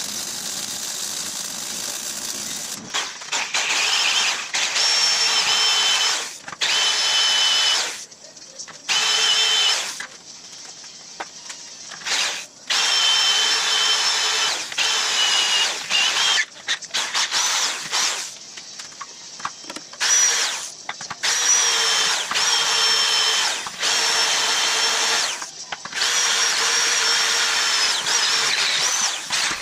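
A MIG welder hisses and crackles for the first few seconds. Then an electric drill bores holes through the steel mounting tabs of a welded frame cross-member, with a steady high whine in repeated bursts of one to four seconds and short pauses between them.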